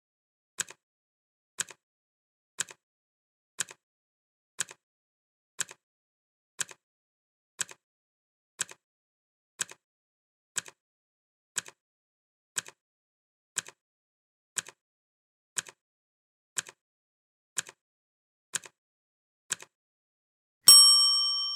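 Clock ticking once a second, each tick a quick double click. Near the end comes a single loud bell ding that rings on and fades, marking the end of the countdown.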